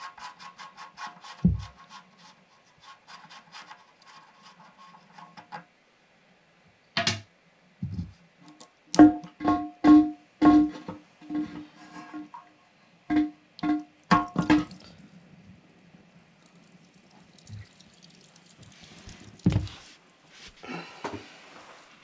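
Hands working the plastic retainer nut under a toilet tank loose from the fill valve: a run of quick, even ticks for the first few seconds, then about ten sharp knocks that ring with the same clear pitch each time, and a few scattered thumps.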